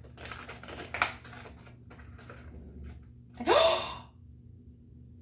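Small clicks and rattles from handling door-handle hardware and its packaging, with a sharper click about a second in. A brief rising pitched sound about three and a half seconds in is the loudest moment.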